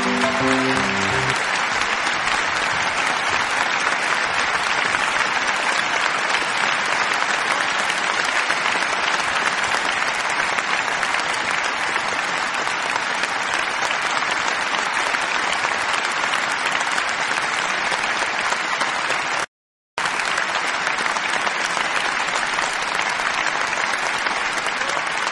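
Steady applause, following a few notes of music that end about a second in; the applause cuts out briefly about three-quarters of the way through, then resumes.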